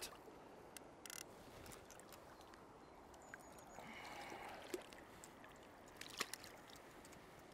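Faint steady rush of a fast-flowing river, with a few soft small splashes as a landed grayling is handled in the water.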